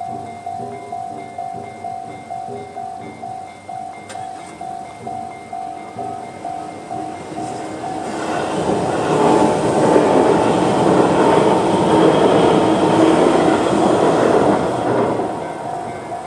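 Electronic level-crossing warning bell (Tobu 'sound C' type) ringing evenly at about one and a half strikes a second. About eight seconds in, an electric train passes through the crossing: its running noise swells to the loudest point and fades near the end, while the bell keeps ringing.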